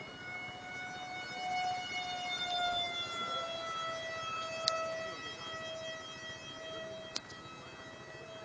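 Su-34 RC model jet's fan motor whining steadily in flight, its pitch sagging slightly about three seconds in. Two sharp clicks come near the middle and toward the end.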